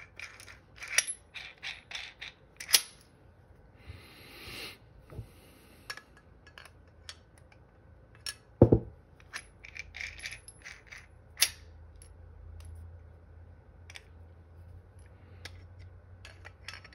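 Scattered metallic clicks, taps and clinks as a steel pistol slide is fitted into an aluminium Wiregear sight pusher and its knurled clamp knobs are worked. A few sharper knocks stand out, the loudest about halfway through, and there is a brief scrape around four seconds in.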